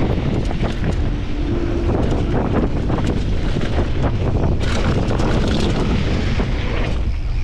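Mountain bike running fast down a loose dirt and gravel trail: wind buffeting the helmet camera's microphone, with tyres crunching over stones and the bike clattering. The crunching and rattling get stronger a little past halfway, then ease near the end.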